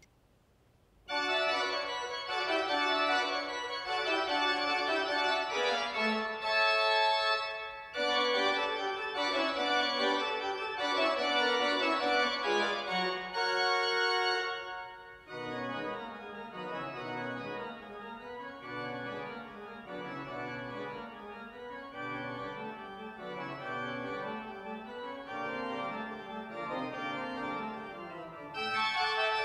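Pipe organ playing loud sustained chords that come in after about a second of silence. From about halfway it drops to a softer passage over a moving low bass line, then grows louder again near the end.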